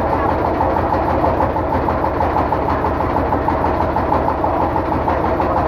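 Boat engine running steadily while underway, a loud continuous drone with a rapid even pulse.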